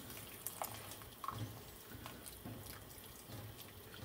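Cornflour slurry poured from a small bowl into a pan of simmering gravy: faint dripping and bubbling, with a few small clicks.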